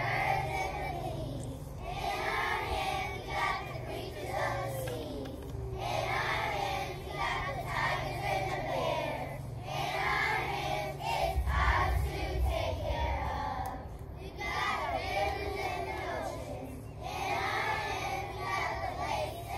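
Children singing a song together in chorus, with backing music, phrase after phrase. A brief low rumble about halfway through.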